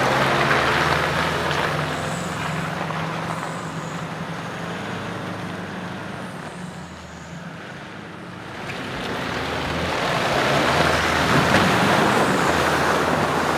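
A four-wheel-drive ute's engine pulls away and fades as it drives off up a muddy clay track. About two-thirds of the way through, the engine grows louder again, joined by the tyres splashing through muddy puddles.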